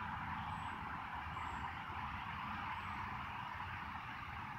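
Steady outdoor background noise, a hiss with a low fluttering rumble, and no shot or impact heard.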